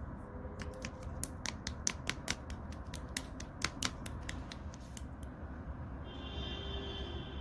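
Glittery orange pearl slime being worked by hand, with trapped air pockets popping in a quick, irregular run of sharp clicks for the first five seconds. Near the end a faint high tone is heard over a low steady hum.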